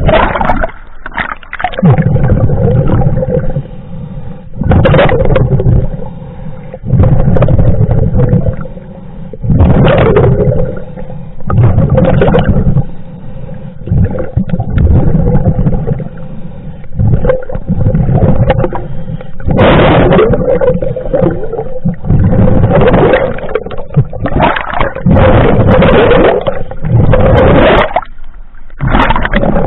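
Scuba diver breathing through a regulator underwater: loud rushes of exhaled bubbles, each a second or two long, every two to three seconds, with quieter inhalation between.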